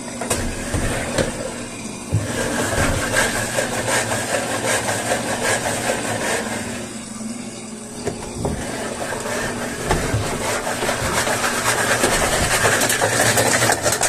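Top-loading Asento washing machine basket spinning, making a loud scraping, clicking noise in two long runs with a dip about halfway through. The noise comes only with the basket's movement and is caused by a foreign object loose inside it: the detached fabric-softener dispenser cap.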